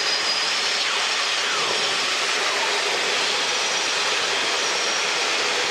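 Steady cabin noise of a small training helicopter in cruise flight: engine, rotor and airflow blended into an even, unchanging hiss.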